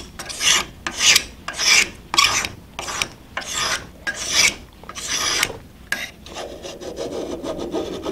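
Steel blade of a chair scrape, a fixed-blade scraper, shaving the edge of a hardwood board in repeated short scraping strokes, about two a second. The strokes stop about six seconds in and give way to a quieter, lower rubbing.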